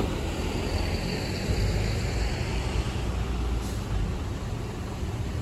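Street traffic at a city intersection: a steady low rumble of vehicle engines, with a large truck close by.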